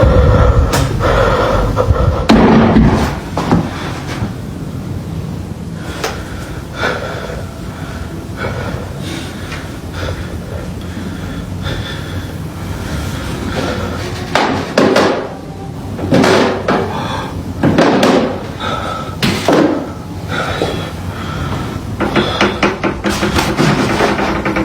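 Loud banging inside a house: irregular heavy bangs and thuds like slams against a door, a few of them close together, with quieter stretches between.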